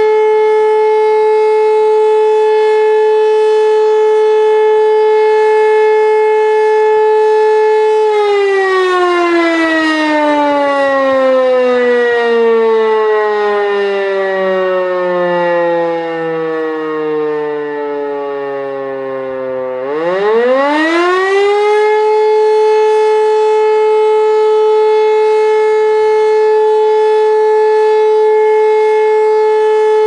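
E57 electromechanical siren on a tall mast sounding the German fire-alarm (Feueralarm) signal. Its steady howl winds down about eight seconds in, sinking in pitch for some twelve seconds, then winds back up to full pitch about twenty seconds in and holds. This is the pause between two of the signal's tones, with the rotor coasting down and speeding up again.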